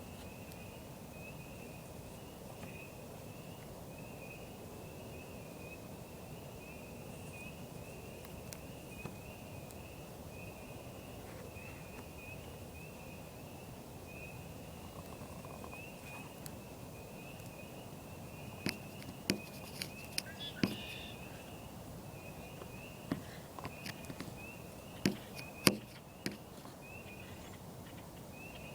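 An unidentified high-pitched chirping noise repeating in an even, rapid pulse without a break, with several sharp clicks or knocks in the second half.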